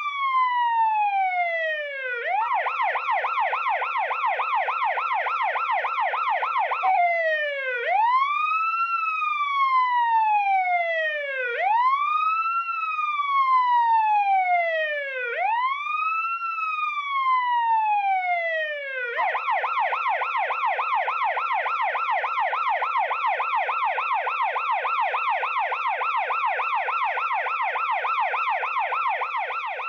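Police siren switching between wail and yelp. The wail rises and falls slowly, about every four seconds. It changes abruptly to a fast, rapidly warbling yelp about two seconds in, goes back to the wail at about seven seconds for three cycles, then returns to the yelp for the last third.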